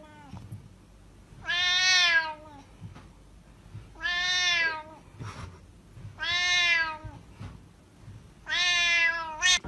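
A long-haired colorpoint cat meowing loudly four times at an even pace, each meow drawn out for about a second, one every two and a half seconds or so.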